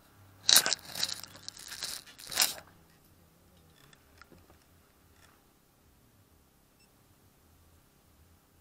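Crackling, rustling handling noise on the camera's microphone for about two seconds, starting about half a second in, followed by faint background.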